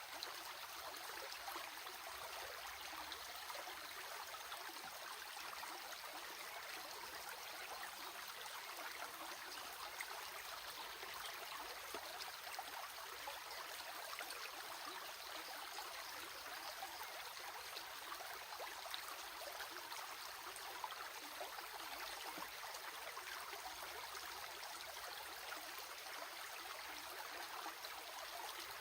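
A stream of water running steadily over rocks, an even babbling with small splashes.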